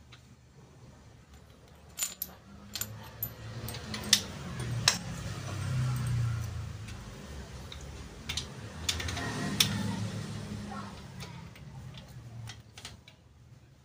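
Sharp metal clinks and ticks, half a dozen or so, from spacer rings and small steel parts being handled and fitted at a motorcycle's rear wheel, over a low rumble of handling noise.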